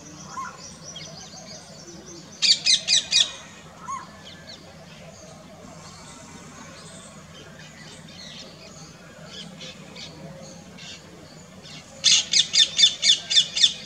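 Asian koels giving rapid runs of shrill, repeated keek notes: a short burst of four about two and a half seconds in, and a longer run of about eight near the end. Fainter bird chirps come in between.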